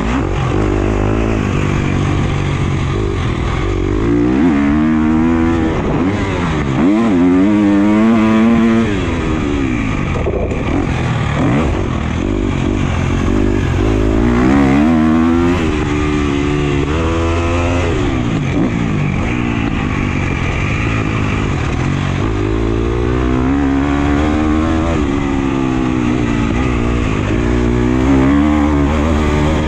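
Husqvarna FC250 four-stroke single-cylinder motocross engine being ridden hard, its pitch rising and falling again and again as the throttle is opened and shut through the track's sections.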